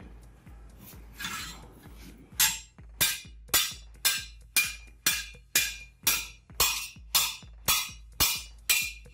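Hand hammer striking a steel flat bar laid on a steel anvil block: loud ringing metal blows about twice a second, starting about two and a half seconds in. A steady electronic music beat runs underneath.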